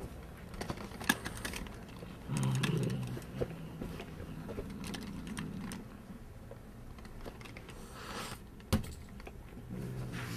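A cat at play with a sparkle ball: scattered quick clicks and scuffs, with a low steady hum from about two seconds in and one sharp knock near the end.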